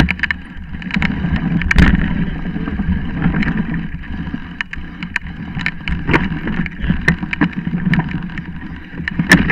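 Mountain bike rolling downhill over a dirt trail strewn with dry leaves: a steady rumble of knobby tyres on the ground, with frequent irregular knocks and rattles of the bike over bumps, the biggest jolts about two seconds in and near the end.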